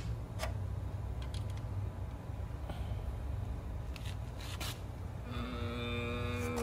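Faint light clicks and scrapes of steel bolts being threaded by hand through a camshaft retainer plate into an LS engine block, over a low steady hum. About five seconds in, a steady pitched hum starts and holds.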